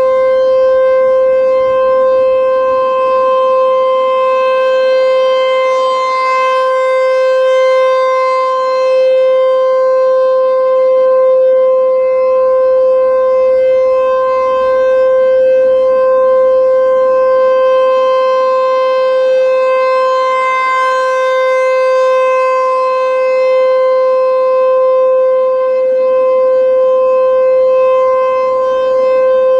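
American Signal T-128 outdoor warning siren sounding a steady Alert tone, one held pitch with no rise or fall, swelling slightly in loudness now and then. The steady tone is the siren's Alert signal, sounded here as a monthly test.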